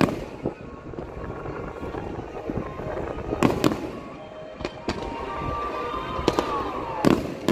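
Aerial firework shells bursting with several sharp bangs, the loudest about three and a half seconds in and again just before the end, over music playing in the background.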